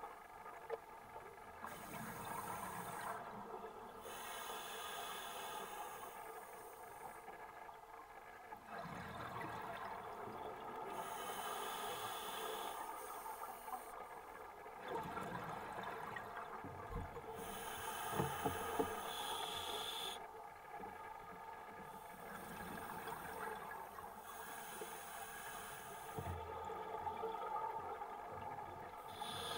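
Scuba diver breathing through a regulator underwater: a hissing inhale, then an exhale of bubbles, repeating about every five seconds.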